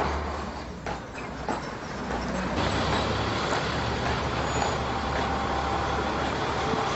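Street traffic noise, with a school bus's engine running close by from about two and a half seconds in as the bus passes.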